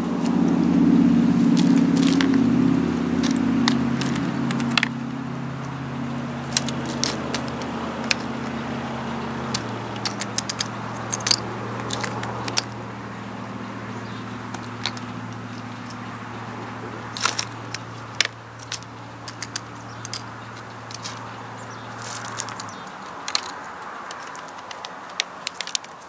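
Blue jay pecking at seed and peanuts on a wooden feeder platform: a string of sharp, irregular taps and cracks. Underneath runs a steady low engine hum, loudest in the first few seconds, which stops near the end.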